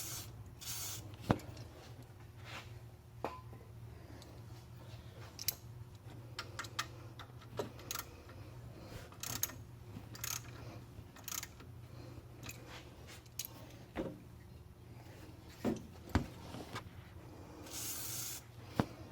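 Aerosol penetrating lubricant sprayed in short hissing bursts onto the back of crusty, rusted water pump bolts: one just after the start and a longer one near the end. Light clicks and taps of tools being handled come between, over a low steady hum.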